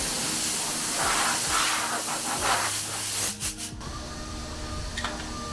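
Compressed air hissing from a shop air tool in short, uneven blasts, cutting off about three and a half seconds in.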